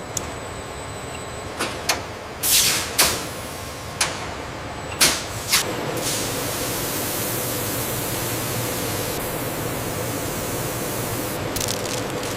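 Factory machinery: a series of sharp clicks and short hissing bursts, then from about six seconds a steady hiss over a low hum.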